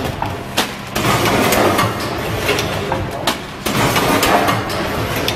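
Vertical form-fill-seal packing machine running, with a sharp knock twice, about two and a half seconds apart, as it cycles through forming, sealing and dropping a bag.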